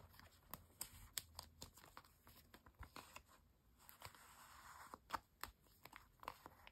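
Clear plastic photocard sleeves crinkling and clicking faintly as the sleeved cards are handled and shuffled, with a short soft rustle about four seconds in.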